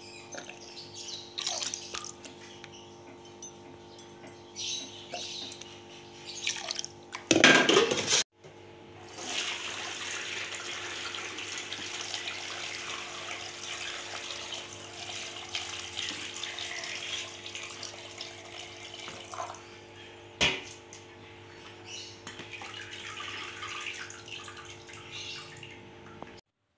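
Chili brine poured from a steel pot through a plastic strainer into a bowl, a steady splashing stream from about nine seconds in, with a sharp knock about twenty seconds in. The chili pulp is being strained out of the liquid. Before the pour there are light clinks and a brief loud burst of noise about seven seconds in.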